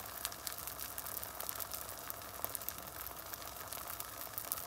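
Beaten eggs with spring onions frying in a little olive oil in a nonstick pan, sizzling steadily with a fine irregular crackle of small pops.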